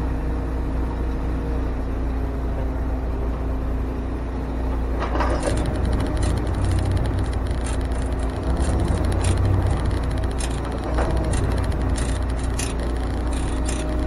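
Truck engine running with a steady low rumble. From about five seconds in, a run of sharp clicks and ticks sounds over it.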